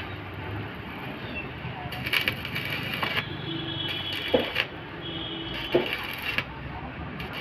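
Stick (arc) welding on steel: the arc crackles and sizzles in three short runs, broken off and struck again, with a few short sharp knocks between.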